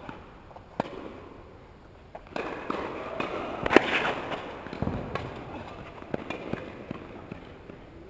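Sharp tennis-ball strikes echoing in a large indoor tennis hall, a few seconds apart. The loudest crack comes about four seconds in, amid a stretch of rustling close to the microphone as the camera is moved.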